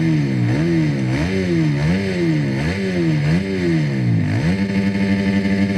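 Kawasaki KX450 supermoto's single-cylinder four-stroke engine revved in quick repeated blips, the pitch rising and falling about every half second, then held at a steady raised rev for the last second or so.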